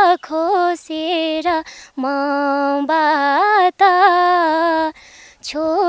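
A woman singing a Nepali folk love song unaccompanied, holding long notes with wavering ornaments and brief pauses for breath between phrases.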